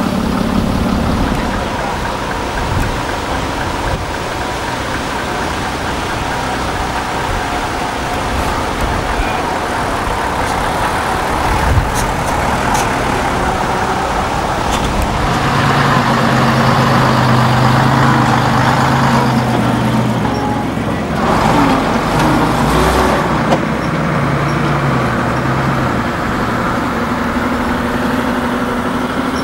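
Heavy diesel engines of vintage buses and a lorry running as the vehicles drive by. A nearer, louder engine comes in about halfway through.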